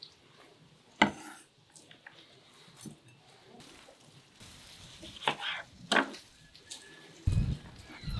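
Scattered sharp knocks and clicks of food and dishes being handled on a wooden table, the loudest about a second in and a few more around five to six seconds in. A low muffled rumble starts near the end.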